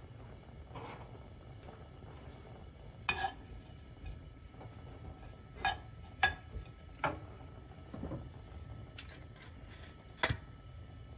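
A kitchen utensil knocks against cookware: about six separate short clinks, each with a brief ring, over a quiet background.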